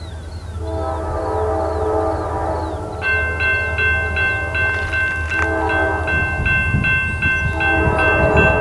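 Air horn of an approaching Norfolk Southern freight's lead locomotive, a GE C44-9W, sounding a chord in several long blasts. From about three seconds in, a bell rings steadily about twice a second alongside it.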